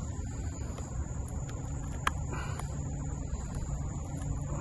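Night insects keep up a steady, high-pitched chorus over a low rumble of handling noise. About two seconds in there is a single sharp click and a brief rustle while the lure's hook is worked out of the fish's mouth.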